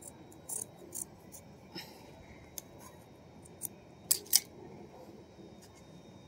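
Scissors snipping through a cotton T-shirt, a string of short separate snips with the loudest pair about four seconds in. The scissors are not very sharp, by the user's own account.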